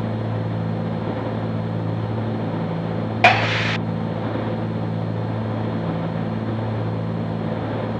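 Cabin drone of a Cessna 310Q's twin Continental six-cylinder engines and propellers at reduced descent power, with a slow, even pulsing beat between the two engines. A short sharp click or burst about three seconds in.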